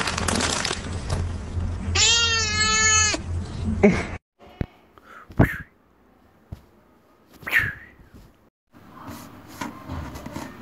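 A domestic cat meowing: one long, even meow lasting about a second, followed later by two short, fainter cries and a few clicks.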